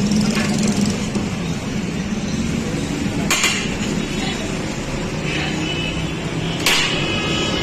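Two sharp metal clanks from serving pulao out of a large metal cooking pot, about three seconds apart, over steady background noise.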